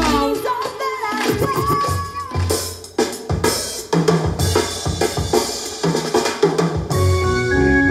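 Dance-battle music with a heavy drum beat and bass, played loud; a sung line in the first second gives way to drums and bass, which drop briefly just before three seconds in and then return.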